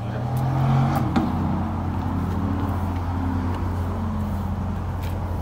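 Car engine running at idle, a steady deep drone; its pitch sits a little higher for the first second, then settles lower.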